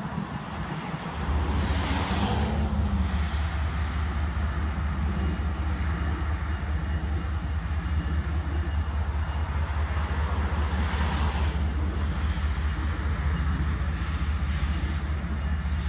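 Distant approaching diesel freight train: a steady low rumble. Two swells of passing road traffic come about two and eleven seconds in.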